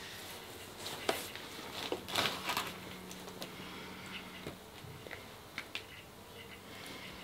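Plastic squeeze bottle of white pouring paint being squeezed over a canvas: a few short squirts and sputters of paint and air with small clicks, loudest about two seconds in.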